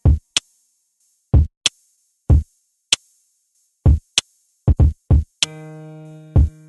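Background music: sparse electronic drum-machine beat of kick and hi-hat hits with gaps of silence between them, joined about five and a half seconds in by a held synthesizer chord.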